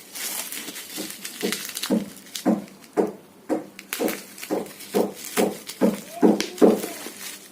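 Courier packaging being cut or torn open by hand: a regular series of short scraping strokes, about two a second, growing louder toward the end.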